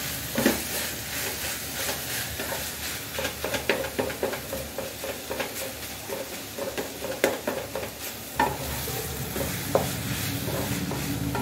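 A spatula scraping and knocking against a metal pan as shredded chicken and grated cabbage are stirred, with a steady frying sizzle underneath.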